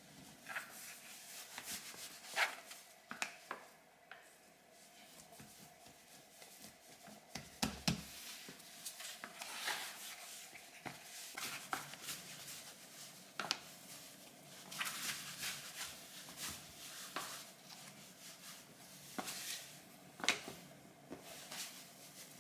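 Hands working a rye sourdough dough on a floured countertop: irregular soft pats, presses and rubs with small taps, and one heavier thump about eight seconds in.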